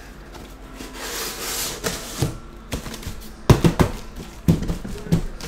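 Cardboard shipping case being handled: a scraping rub of cardboard about a second in, then several sharp knocks and thumps as the case flaps and the boxes inside are moved.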